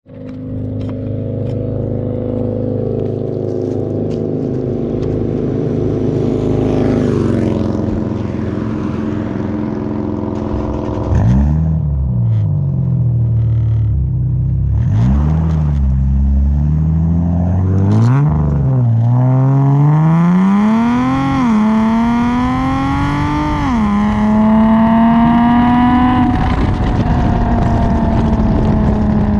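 Infiniti G37 sedan's 3.7 L V6, breathing through a SOHO 3-inch single-exit exhaust and resonated test pipes, idles steadily and is then revved several times. It then accelerates away, rising in pitch with two upshifts, and settles into a steady cruise.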